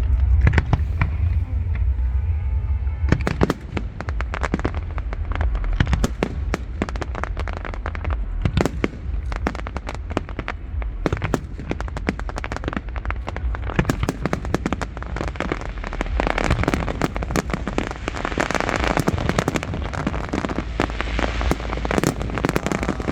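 Fireworks display: a rapid, unbroken string of sharp bangs and crackling bursts over a steady low rumble, growing into denser crackle near the end.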